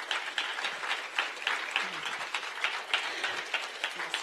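Audience applauding: many people clapping in a dense, steady stream of claps.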